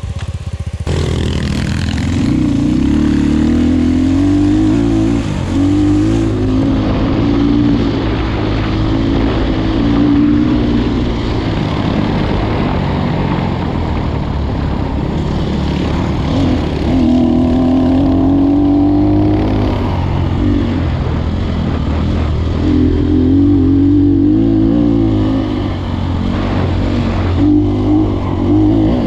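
Onboard sound of a 250 cc enduro motorcycle's engine under way, its pitch rising and falling over and over with the throttle.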